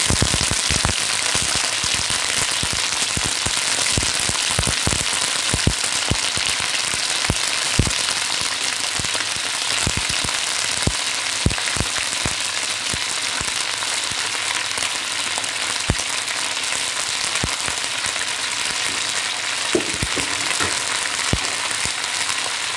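Whole red chillies, tomatoes, shallots and garlic frying in hot vegetable oil in a wok: a steady sizzle with many sharp pops and crackles, the pops coming less often in the second half.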